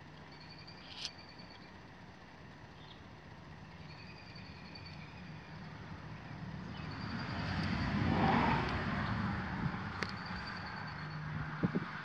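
A vehicle passing by, its noise swelling to a peak about eight seconds in and then fading away.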